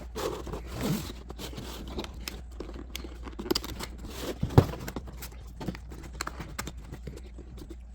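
Irregular clicks, knocks and scraping from objects being handled, the sharpest knock about halfway through, over a low steady hum.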